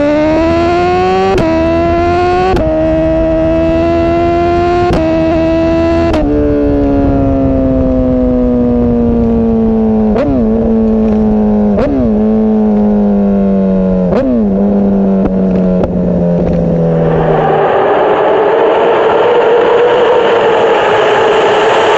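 Superbike engine pulling hard up through the gears with four quick clean upshifts, then slowing with three blipped downshifts as the revs fall away. Near the end it gives way to a louder, rushing engine-and-wind sound echoing in a road tunnel.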